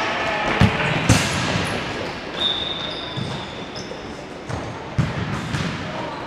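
A futsal ball being kicked and bouncing on a hard indoor court, with sharp thuds about half a second in, a second after, and again near the end.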